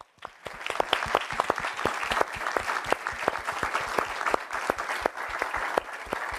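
Audience applause in a hall: many hands clapping, starting suddenly and thinning a little near the end.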